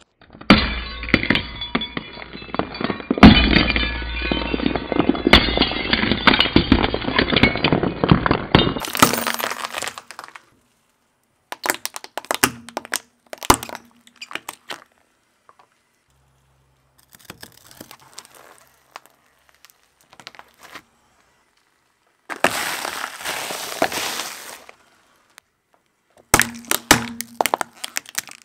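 Brittle objects, glass light bulbs among them, being crushed under a car's tyres: dense cracking and crunching for the first nine seconds or so, then separate sharp cracks and short bursts of breaking with quiet gaps between them.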